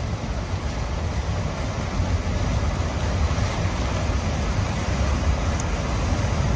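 Storm wind blowing hard and steadily, buffeting the microphone with a deep rumble.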